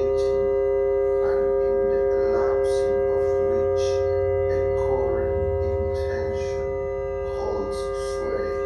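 Analog synthesiser drone of several steady held tones over a low hum, with short gliding sounds recurring about every second and a half.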